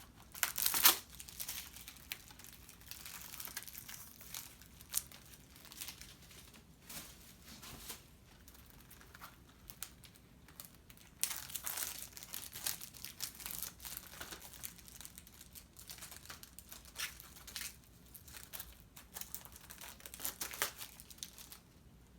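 Blu-ray packaging being handled and pulled apart, crinkling and crackling in irregular bursts. The loudest crackle comes about a second in.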